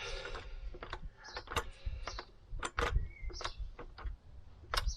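Irregular metallic clicks and knocks from tools and suspension parts as the pressure is taken off a Vauxhall's rear coil spring.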